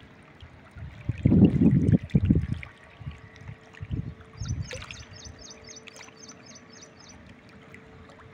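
Outdoor riverbank noise with low gusts of wind rumbling on the microphone about a second in and again around four seconds; a small bird chirps a quick series of about a dozen notes near the middle, and a faint steady hum comes in after that.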